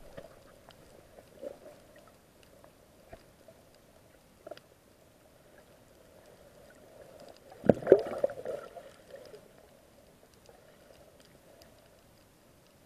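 Muffled underwater water noise heard through an action camera's waterproof housing: a steady dull hiss with scattered small clicks, and a louder rush of water about eight seconds in.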